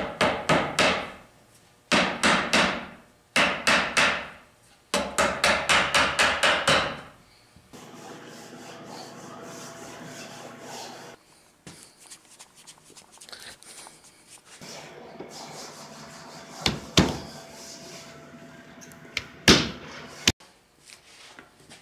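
Hammer rapping on a wooden chair frame in quick runs of blows, about four a second, through the first seven seconds. Then a steady hum for a few seconds, scattered lighter knocks, and two louder knocks near the end.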